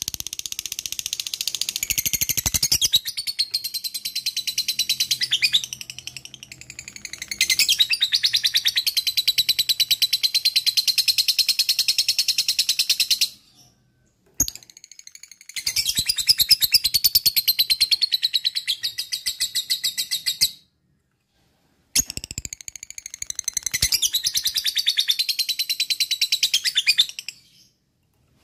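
Lovebird ngekek: a long, very rapid chattering trill of high notes, in three long bouts with short pauses between, the longest lasting over ten seconds.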